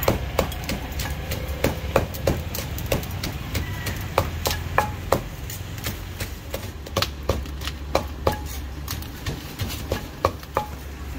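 Irregular sharp knocks and taps from preparing som tam (Thai papaya salad), about one or two loud strikes a second with smaller taps between, some ringing briefly, over a steady low hum.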